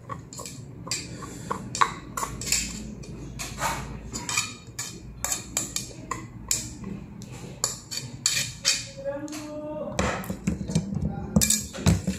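Eating sounds while having instant noodles: a spoon and fork clink and scrape against a plate in short, irregular strokes.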